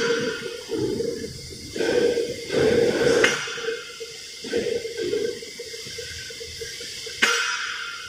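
Steel plates clanking as they are handled and stacked, with two sharp ringing knocks about three and seven seconds in, amid a rushing hiss and rumble.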